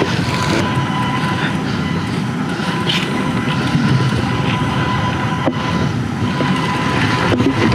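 Steady rushing noise of a mountain bike being ridden along a dirt trail, with a sharp knock about five and a half seconds in and another near the end.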